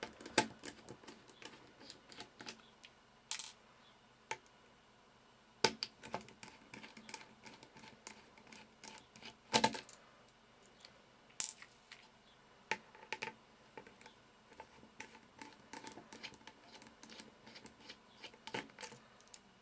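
Light irregular clicks and ticks of a small Torx screwdriver backing tiny screws out of a BlackBerry Curve 8520's frame, with a few sharper taps as screws and tool are set down on the work surface.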